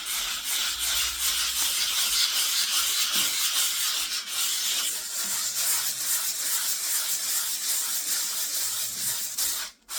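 120-grit sandpaper rubbing across an old varnished wooden tabletop, a steady scratchy hiss that stops abruptly near the end.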